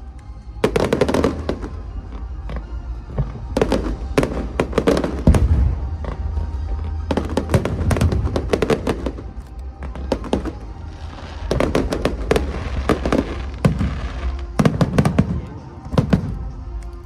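Fireworks display: volleys of rapid, sharp bangs from bursting shells, coming in clusters every few seconds over a steady low rumble, with music in the background.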